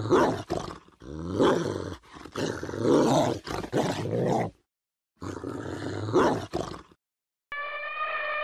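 A dog growling and barking in rough bouts, broken by two short silences. Near the end an elephant starts one long, steady trumpeting call.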